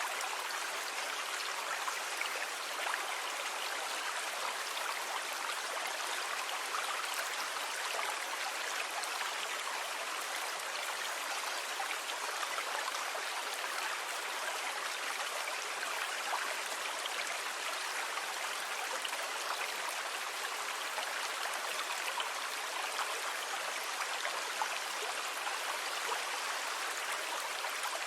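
A steady, even hiss of moving sea water, with no distinct rise and fall of waves.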